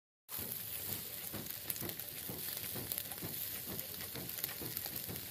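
Whole marinated fish sizzling on a wire grill over glowing charcoal: a steady hiss with many small, scattered crackles.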